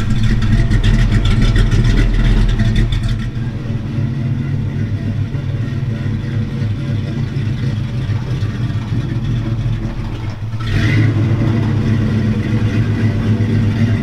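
Chevrolet 348 'W' V8 in a 1940 Chevy truck running, with a steady low exhaust note. About ten and a half seconds in it gets louder as the truck moves closer.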